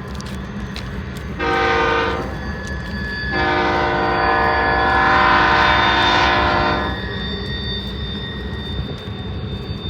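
Locomotive air horn sounding twice: a short blast about a second and a half in, then a long blast of about three and a half seconds, over a steady low rumble.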